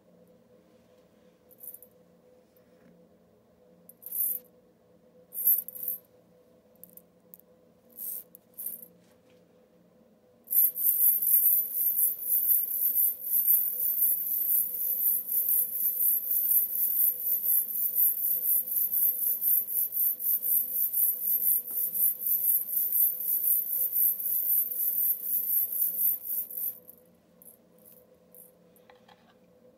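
Meinl Spark Shaker shaken by hand: a few short single shakes, then steady continuous shaking for about sixteen seconds with a bright, high sizzle. A couple of light shakes come near the end.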